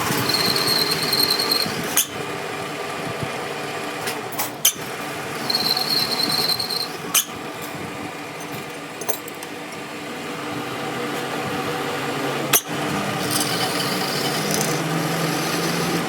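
A power tool whines in three short bursts over a steady mechanical hum, with several sharp metallic knocks in between.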